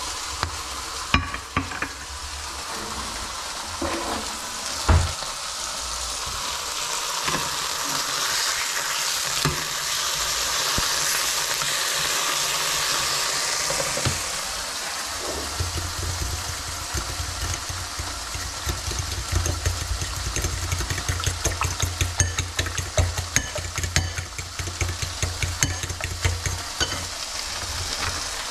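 Food sizzling steadily in a frying pan on the hob. In the second half it is joined by many quick clicks and crinkles as plastic bacon packaging is handled.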